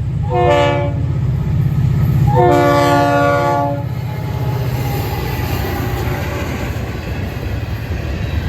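Diesel freight locomotive's multi-chime air horn sounding a short blast and then a longer one, over the steady low rumble of the train.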